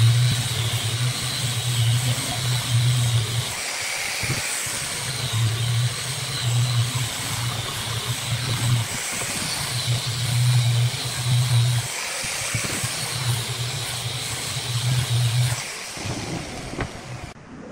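Angle grinder with a sanding disc running and sanding the end-grain face of a round wood slice, a steady hissing grind over a low motor hum that dips a few times. It stops near the end.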